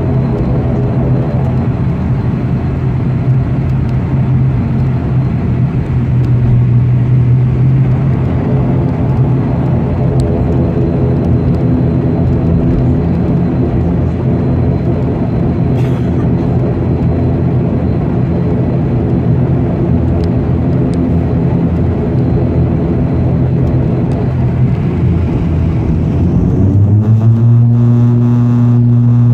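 ATR 72-600's turboprop engines and propellers droning steadily inside the cabin while taxiing, with a strong low hum. About 27 s in, the hum changes pitch and grows louder as engine power is brought up for the takeoff run.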